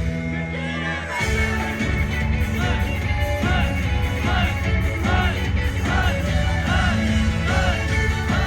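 Live rock band playing a song with singing over heavy drums and bass guitar, with a few yells from the crowd.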